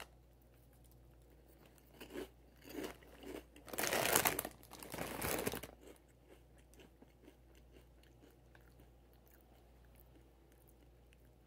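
Doritos 3D Crunch puffed corn snacks being bitten and chewed: a few crunches about two seconds in, the loudest crunching from about four to five and a half seconds, then faint quiet chewing.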